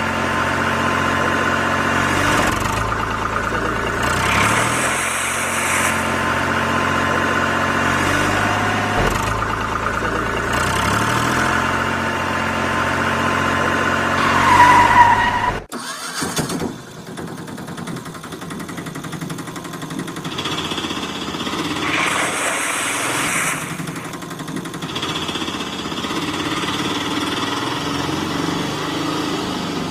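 Tractor engine sound running and idling, with stacked steady tones that shift every few seconds and a sudden break about halfway through.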